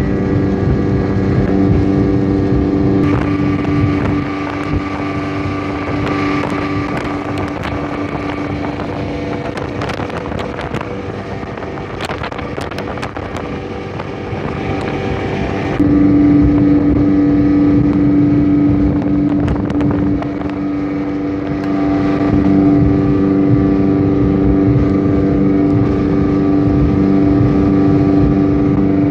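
Speedboat engine running steadily at speed, with wind and water hiss. The engine note eases for a stretch in the middle and comes back louder a little past halfway.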